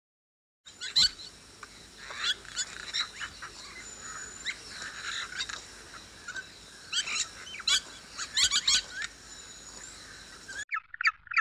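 A chorus of small birds chirping and calling over one another: many short, sharp high chirps and a few thin whistled notes. Near the end it cuts abruptly to a fast run of repeated calls.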